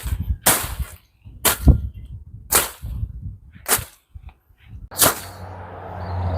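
Weeds being slashed by hand: six sharp swishing chops, about one a second.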